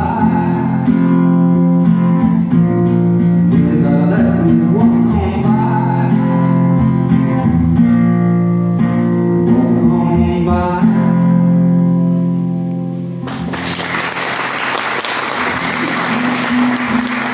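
Live solo acoustic-electric guitar strummed under a male singing voice; the song closes on a held chord about eleven seconds in. Audience applause breaks out about thirteen seconds in and carries on.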